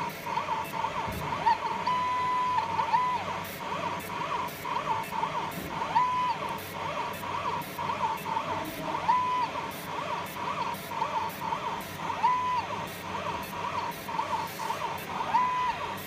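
Fiber laser marking machine engraving bird rings on a rotary attachment: a buzzing hum pulses quickly, about three times a second, and every three seconds or so a short whine ramps up, holds and ramps down as the rotary axis turns the ring rod.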